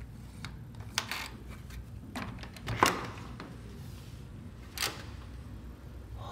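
Three sharp taps or knocks about two seconds apart, the middle one loudest, over a low steady room hum.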